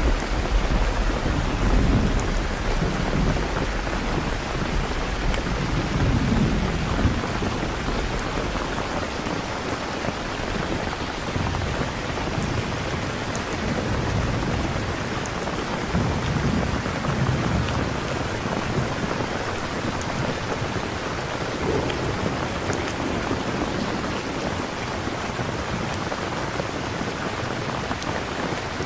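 Steady heavy rain with low rolling thunder that swells up several times and fades back.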